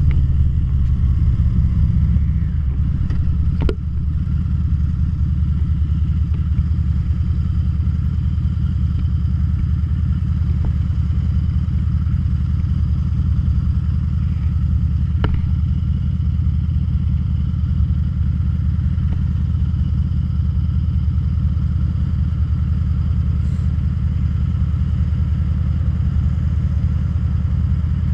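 Harley-Davidson V-Rod Muscle's liquid-cooled Revolution V-twin easing off over the first few seconds, then idling steadily at a stop. Two sharp clicks come through, one about four seconds in and one about fifteen seconds in.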